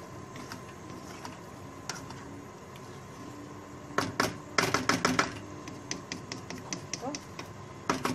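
A spatula stirring a thick spinach and potato mixture in a non-stick pan, knocking and scraping against the pan. It makes scattered clicks and taps, with a fast run of louder knocks about four seconds in.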